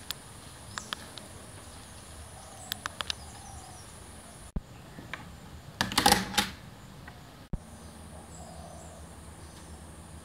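A steady high insect whine from a tropical garden, with scattered sharp clicks. About six seconds in, a loud, short rattling scrape as a hand opens a wooden door.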